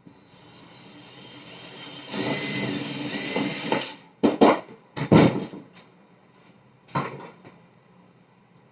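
A power drill running for about two seconds, its high whine dipping in pitch midway as if under load, then stopping abruptly, followed by several sharp knocks and clatters.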